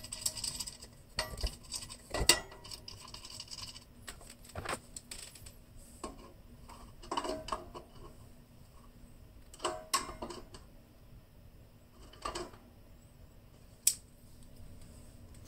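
Hex nut and washers being screwed by hand onto the threaded pipe under a ceiling light's glass globe: scattered light metallic clinks and taps, spread out at irregular intervals.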